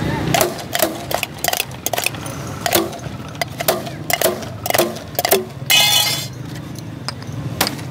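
Glass soda bottles clinking against each other and against glasses in a series of sharp, ringing clinks. About six seconds in comes a short burst of hiss as a carbonated bottle is opened.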